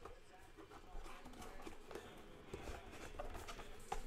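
Several soft, irregular clicks and taps from a computer mouse and keyboard on a desk, the loudest near the end, over faint background talk.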